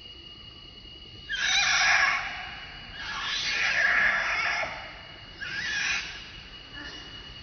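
A long-tailed macaque screeching in distress while another monkey bites at its face: three loud, harsh screams, the first about a second in, the middle one longest and the last one shorter.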